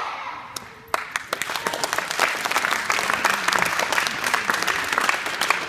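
Audience applauding: a short lull, then clapping starts about a second in and keeps going steadily.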